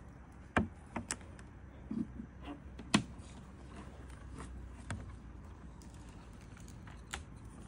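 Scattered sharp knocks and clicks on a canoe as it is paddled slowly, the loudest about three seconds in, over a faint steady low hum.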